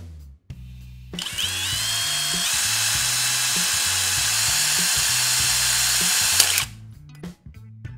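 Cordless drill with a twist bit boring into the side of a thin aluminium drink can. It runs for about five seconds as a loud whine and hiss, climbing in pitch as it spins up about a second in, then holding steady before cutting off sharply.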